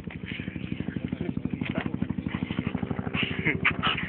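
Military helicopter's rotor beating overhead, a fast steady chop of blade thumps. Short high cries from a dog break in near the end.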